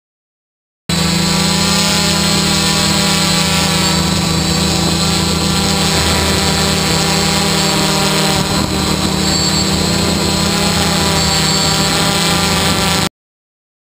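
Multirotor camera drone's electric motors and propellers hovering: a steady, loud buzzing hum with high whines above it. It starts abruptly about a second in and cuts off abruptly near the end.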